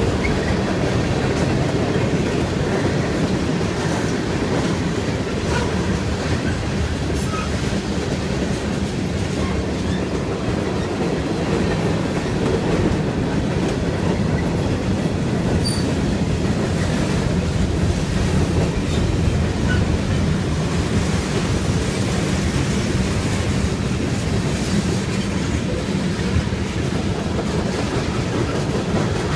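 Freight train cars passing fast on the rails, a steady heavy rumble of steel wheels with rapid clickety-clack over rail joints.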